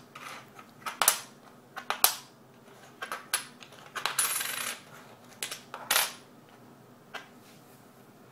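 Canadian silver half-dollar and quarter coins being slid, picked up and set down on a wooden tabletop: a string of sharp clinks with a short metallic ring, and a longer jangle about four seconds in.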